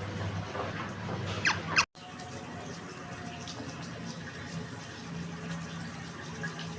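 Budgerigar chirps, a couple of quick high falling notes, over a steady water-like hiss. The sound cuts out completely for an instant about two seconds in, then the hiss continues.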